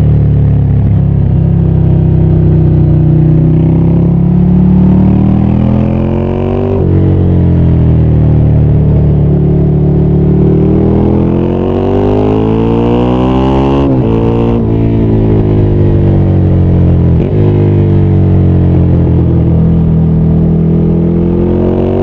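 Ducati Scrambler 800's air-cooled L-twin engine accelerating and changing gear. Its pitch climbs, drops sharply about seven seconds in, then climbs again to high revs around fourteen seconds. It then falls away as the throttle closes and holds fairly steady near the end.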